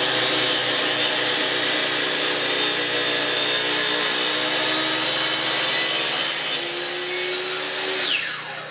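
Electric power saw running and cutting through a wooden rail, then switched off near the end, its motor winding down with a falling whine.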